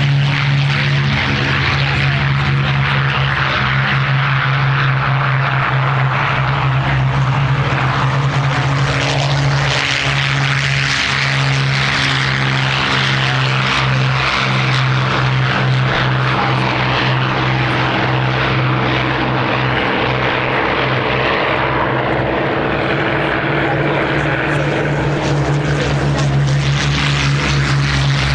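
Several Spitfire and Hurricane fighters' V12 piston engines running as the aircraft take off one after another. The result is a loud, steady, deep propeller drone that holds throughout.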